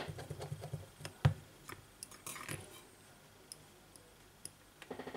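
Scattered small clicks and taps of fingers pressing plastic and metal parts and flex-cable connectors into place inside a Samsung Galaxy S8+ phone frame, the sharpest click a little over a second in.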